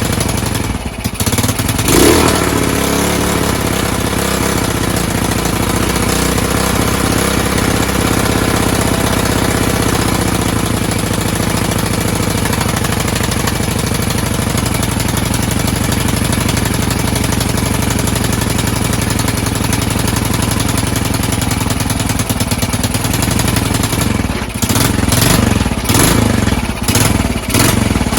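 Honda TLR200's single-cylinder four-stroke engine running loud and rough, with a brief rev about two seconds in and the revs rising and falling unevenly near the end. The excess noise comes from a bent exhaust leaking at the head manifold, as the owner reckons.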